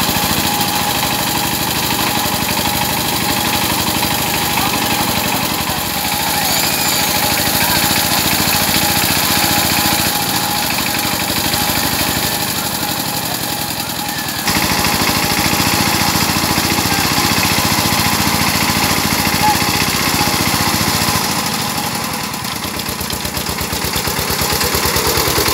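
Power tiller's single-cylinder diesel engine running steadily under load, pulling a brick-loaded trailer that is stuck in soft dirt. It gets a little louder about halfway through.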